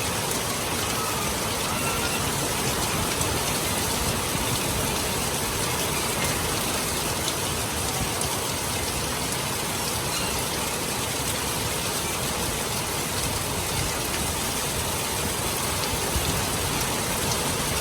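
Steady rain falling, an even hiss of drops that holds at one level throughout, with a few faint short chirps over it.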